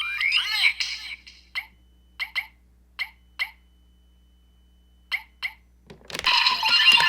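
Electronic sound effects from a DX Kamen Rider Revice transformation belt toy's speaker during its transformation sequence. A rising sweep comes first, then a string of short, sharp chirps with gaps between them, and about six seconds in a dense burst of music and effects starts.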